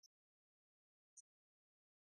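Near silence, broken only by two faint, very short high ticks, one at the start and one about a second later.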